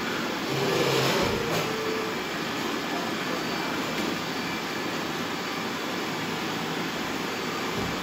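Many robot vacuums running at once on a hard tile floor: a steady whir of their suction motors and brushes. It swells briefly about a second in, with a short tone over the top.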